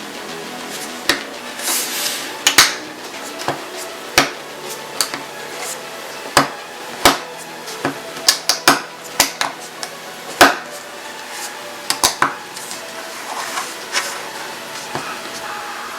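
LEGO plastic bricks clicking and clattering as pieces are handled and pressed together, in irregular sharp clicks.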